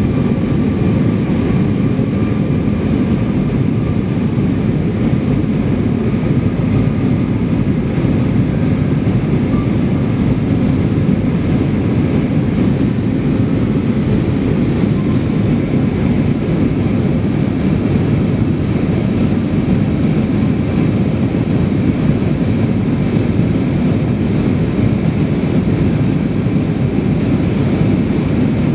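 Steady engine drone and airflow rumble of a jet airliner heard from inside the passenger cabin in flight, with faint high steady hums over the rumble.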